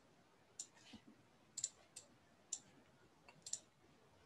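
Faint, scattered clicks, about six of them, from a stylus tapping and writing on a tablet.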